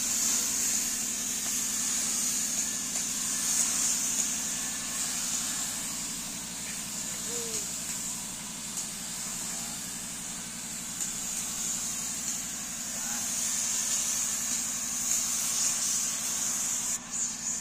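Gravity-feed automotive paint spray gun hissing steadily as a coat of white paint is sprayed across a car door, the air cutting off when the trigger is released near the end.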